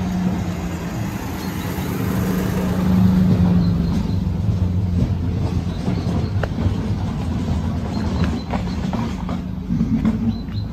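Small car driving past close by, loudest about three seconds in, over a steady low engine hum.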